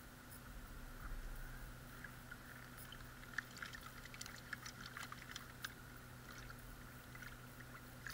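Faint water sloshing and dripping as a plastic gold pan is dipped and swirled in a tub of water, washing the light sand off the concentrate, with scattered small splashes in the middle.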